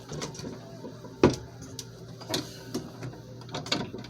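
Scattered clicks and knocks of a door closer and its hardware being handled and fitted onto a wooden screen-door rig, with one loud knock about a second in.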